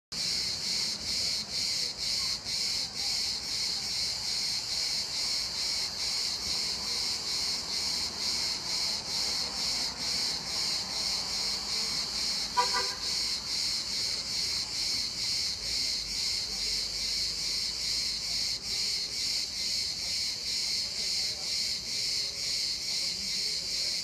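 Cicadas singing in pine trees: a steady high buzzing that pulses two or three times a second. A short toot sounds once about halfway through.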